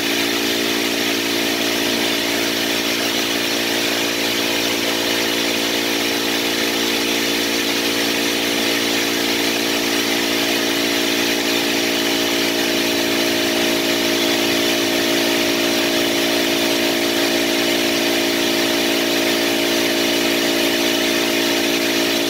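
Steady machine hum with a constant hiss, unchanging throughout.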